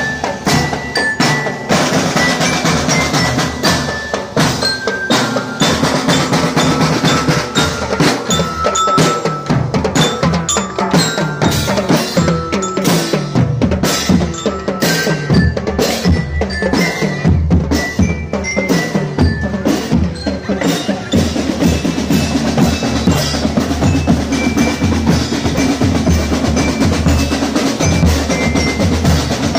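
School marching band playing on the march: snare and bass drums beating a steady, busy rhythm, with a high bell-like melody of short notes above them.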